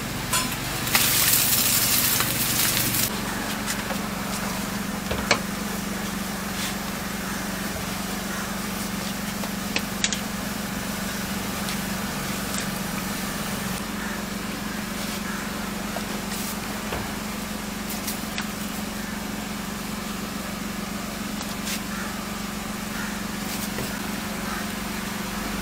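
Food-preparation sounds in a food-truck kitchen: a steady low hum, with a loud hiss lasting about two seconds near the start and scattered light clicks and taps of utensils.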